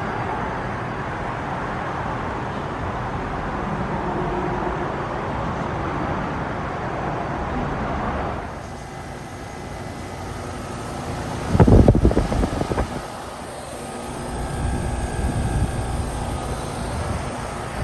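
2014 Ruud Achiever heat pump outdoor unit starting up in cooling mode. A steady hiss drops away about halfway through. A loud low rumble follows, lasting about a second and a half, and then the unit runs with a lower steady noise.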